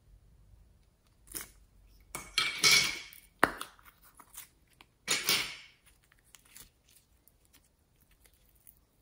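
Clear plastic turtle-shaped slime container being handled and pried open: short bouts of plastic crackling and rubbing, with a sharp snap of the lid about three and a half seconds in and another crackle about five seconds in.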